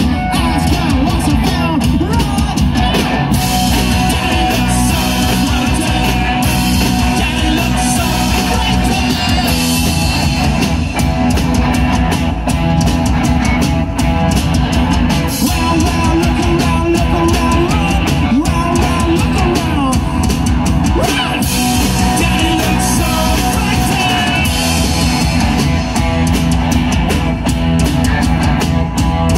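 Rock band playing live: electric guitars, electric bass and a drum kit, loud and steady, with drum hits keeping a regular beat.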